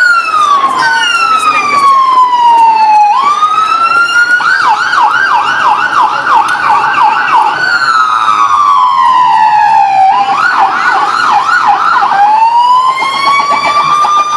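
Electronic siren switching between a slow wail and a fast yelp. It falls slowly, breaks into a rapid warble of about three cycles a second for about three seconds, falls slowly again, warbles a second time for about two seconds, then rises slowly.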